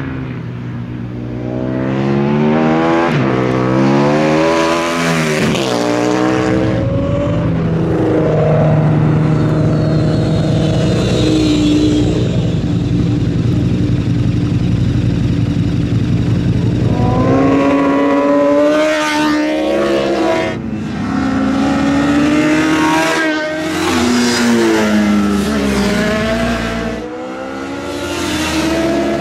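Sport motorcycles accelerating hard through corners and passing one after another, engine pitch climbing and dropping back with each gear change.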